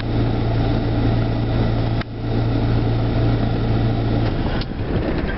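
A steady low engine hum under broad noise, with a brief dip about two seconds in, stopping about four seconds in.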